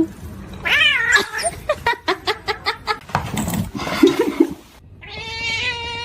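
Domestic cat vocalising: a short meow about a second in, a quick series of short sounds, then a long drawn-out yowl that begins near the end.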